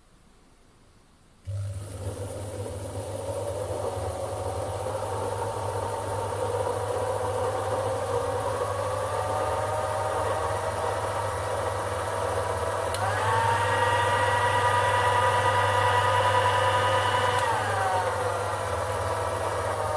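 Sherline micro lathe's variable-speed motor and spindle switching on about a second and a half in and running a pointed center in the three-jaw chuck: a steady hum under a whine that climbs slowly as the spindle gathers speed, steps higher about two-thirds of the way in, then falls back near the end.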